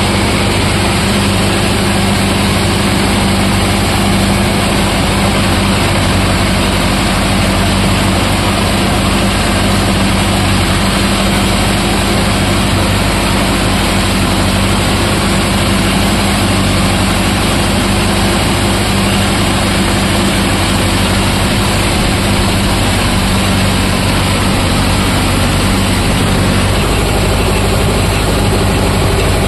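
Mahindra Yuvo Tech+ 575 DI tractor's diesel engine running at a steady speed, with no change in pitch or level.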